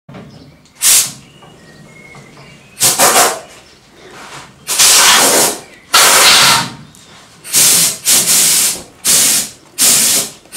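About eight short bursts of loud hissing spray at uneven intervals, each lasting well under a second.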